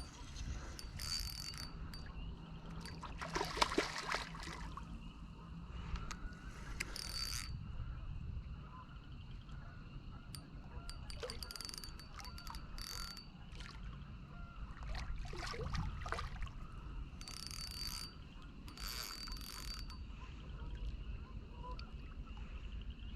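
Fishing reel winding line in, in short spells of a second or two, a fast mechanical whirring and clicking, while a hard-pulling catfish is fought on the line.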